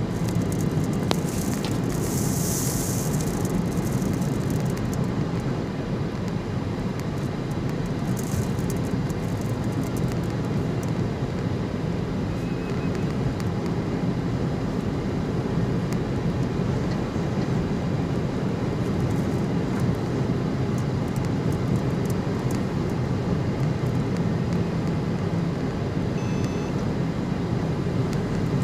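Steady low rumble of road and engine noise heard inside the cabin of a moving car. A brief hiss rises over it about two seconds in.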